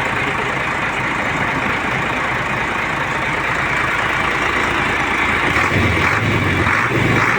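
Isuzu 6HH1 inline-six diesel truck engine running steadily. It grows a little louder, with a deeper throb, about five and a half seconds in.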